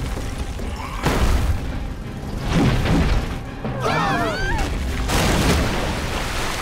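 Dramatic cartoon chase music with sudden crash and boom effects, one about a second in and a bigger one about five seconds in. A flurry of high squealing glides comes just before the second crash.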